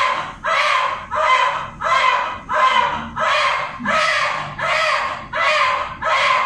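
Newborn baby crying in short, regular wails, about one and a half a second, each cut off by a quick breath.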